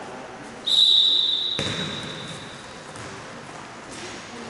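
A referee's whistle is blown once, a single steady high blast about a second long that rings on in a large hall. A dull thump comes just as it ends.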